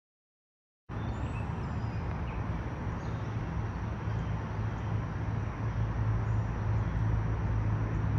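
Steady low hum of a running vehicle with road or wind noise, starting abruptly about a second in after a moment of dead silence.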